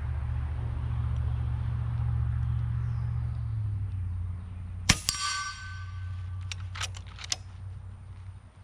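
An FX Impact PCP air rifle fires once with a sharp crack about five seconds in. At once a steel plate target rings out with a clear metallic tone that dies away over about a second as the pellet strikes it. A few lighter metallic clicks follow, and a low steady rumble is heard in the first half.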